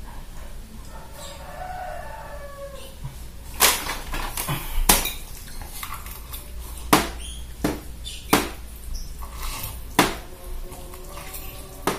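Eating instant fried noodles from a bowl with a spoon and fork: sharp clinks of cutlery against the bowl, about seven over the last eight seconds, with eating noises in between.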